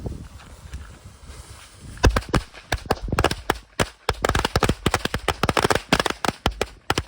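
A 100-count strip of Phantom firecrackers going off: a rapid, uneven chain of sharp bangs, several a second, starting about two seconds in and running on.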